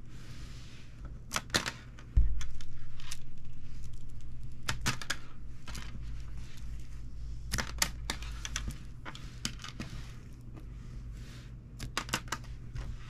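Plastic spiral springs being twisted, pulled and fiddled with by hand, giving scattered sharp clicks, some in quick clusters, over light rubbing. A low thump about two seconds in is the loudest sound, and a low rumble fades slowly after it.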